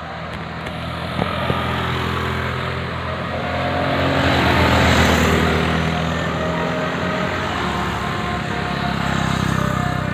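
Bus engine running as a bus passes close by, getting louder to a peak about halfway through and easing off, then rising again near the end.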